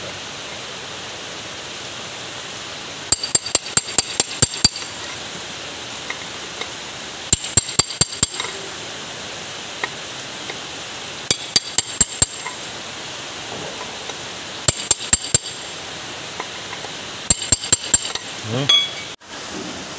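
Hammer tapping a steel socket used as a drift to seat a new oil seal in a steel-rack pinion housing: five quick runs of about six to eight sharp, ringing metal-on-metal taps, a few seconds apart.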